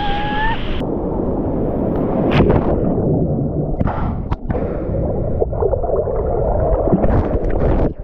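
Ocean surf churning, heard underwater as a wave tumbles the camera: a loud, muffled rushing rumble with a few sharp knocks and bubbly pops, cutting off suddenly as the camera breaks the surface.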